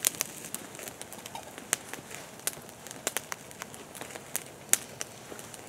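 Wood campfire crackling, with irregular sharp pops and snaps as it burns under bacon and pork chops.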